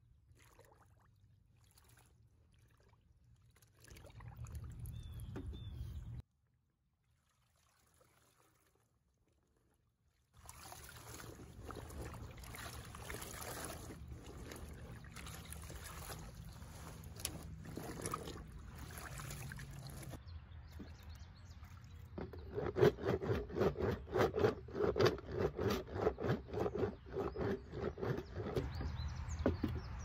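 Water sloshing in a galvanized tub as sheets are worked under, then from about two-thirds of the way in a rhythm of rasping strokes, a few a second: a pink bar of laundry soap rubbed up and down the corrugated metal ribs of a Behrens washboard.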